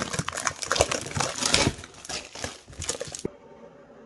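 A cardboard perfume box being handled and opened: quick rustling and clicking, dense for the first couple of seconds, then sparser, stopping about three seconds in.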